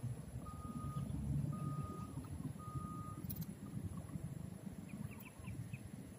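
A vehicle's reversing alarm beeping on one steady pitch about once a second, stopping about three seconds in, over a low rumble. A few short high chirps come near the end.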